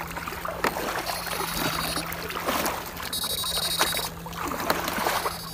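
Water sloshing and splashing as someone wades through a shallow muddy lagoon and sweeps an electrofishing rig through it. Under it runs a steady electric hum, and a high-pitched whine from the rig cuts in twice.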